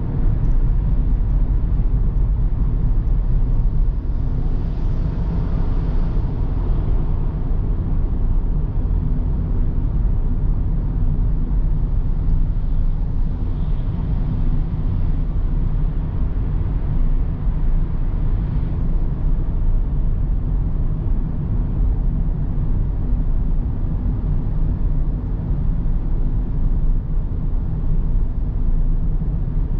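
Car driving along a road: steady low rumble of road and engine noise with a faint steady hum, and a brief swell of higher hiss a few seconds in.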